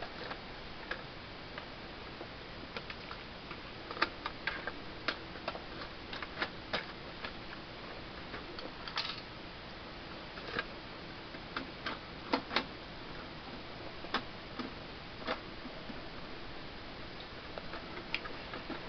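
Irregular light clicks and taps of a screwdriver and screws being worked out of an iMac G3's insides, some sharper than others, over a steady low hiss.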